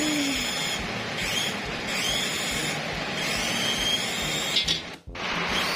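Small remote-control toy helicopter's electric motor and rotor whirring steadily. The whir drops out abruptly for a moment near the end.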